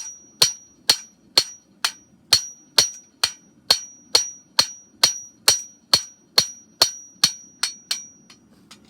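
Farrier's hammer striking a hand-forged steel horseshoe on an anvil: a steady run of ringing blows about two a second, getting lighter over the last few and stopping near the end.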